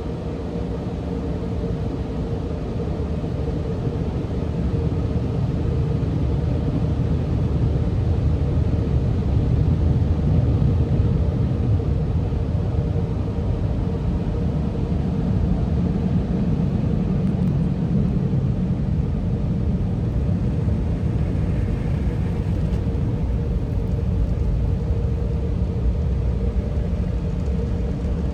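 Steady low rumble and hiss heard from inside a car's cabin as the car rolls slowly out of a car wash tunnel, with a faint steady hum underneath. It grows louder over the first several seconds and then holds.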